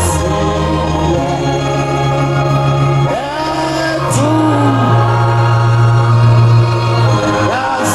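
Electronic organ-style keyboard holding sustained chords that change every second or two, with a voice singing over them.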